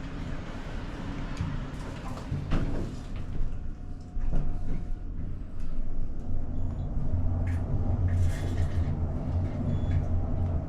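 Passenger elevator starting off and travelling. There is a knock about two and a half seconds in and a brief tone about four seconds in, then the car's low, steady rumble grows louder as it moves.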